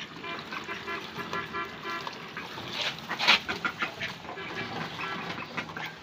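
Ducks quacking in a quick run of repeated calls over the first couple of seconds, then scattered calls with a few sharp clatters around the middle.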